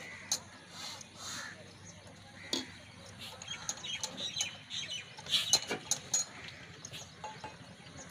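Scattered clicks and knocks of hands and tools on an old stationary diesel engine being readied to start, with a busier run of clinks about five to six seconds in; birds chirp in the background.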